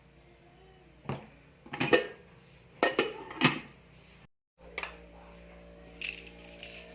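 Cutlery and dishes clinking: four or five sharp clatters in the first half, then a brief dropout and a few fainter clicks.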